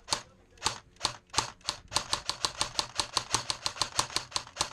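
Airsoft guns firing: a couple of single shots, then from about a second and a half in a rapid, even string of sharp cracks at about six a second.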